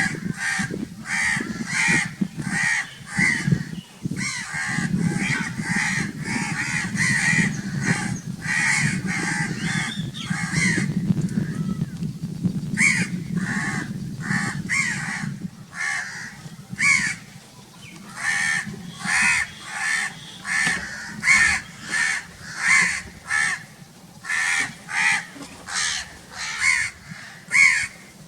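Crows cawing loudly in long runs of short, harsh caws, one to two a second, at times overlapping. A low steady rumble runs underneath through the first half and fades out about halfway through.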